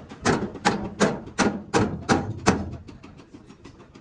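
Hammer blows on a dented truck fuel tank as it is beaten back into shape, about three strikes a second. After about two and a half seconds the strikes give way to lighter, quicker taps.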